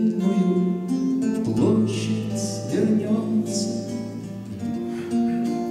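Classical nylon-string guitar playing, its chords ringing and changing. A man's singing voice comes in briefly in the middle.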